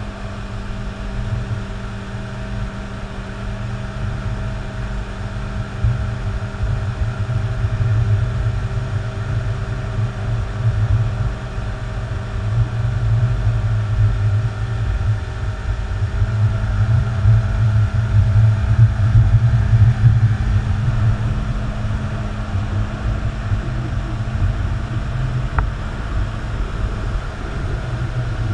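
Motorboat engine running at a steady towing speed, a constant drone that holds its pitch, with wind rumbling on the microphone.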